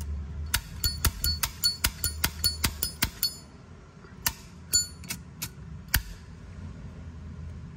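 A Zippo lighter's lid is flicked open and snapped shut over and over, making sharp metallic clicks with a bright ring. They come about three a second at first, then a few slower clicks. The clean, ringing click is the good sound expected of an original, unrepaired Zippo.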